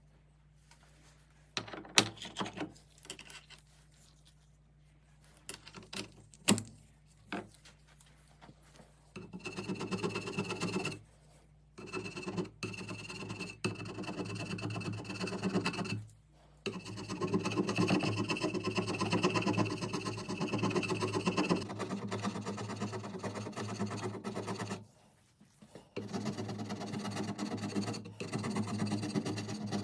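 TV-16 lathe fitted with a milling attachment, its cutter scraping into metal in several runs of a few seconds each, with a steady hum and a thin high whine. Scattered clicks and knocks come before the cutting starts.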